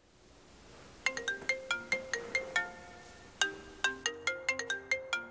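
Mobile phone ringtone: a melody of short, struck notes that starts about a second in, pauses briefly, then plays the phrase again.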